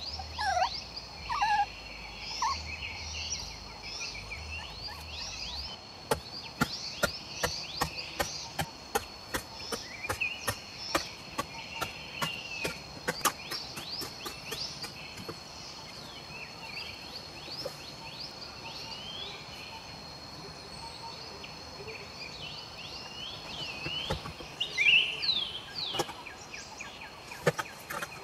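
Forest ambience: a steady high drone of insects with many birds chirping. A puppy whimpers briefly at the start, and from about six seconds in, a rapid run of sharp knocks, a few a second, comes from a digging tool striking dry soil.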